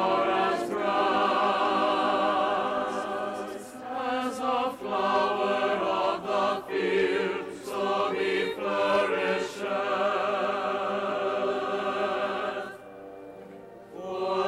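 Large choir singing with orchestra, held chords in phrases that break off and re-enter every second or so. Near the end it drops to a soft held sound before the voices swell again.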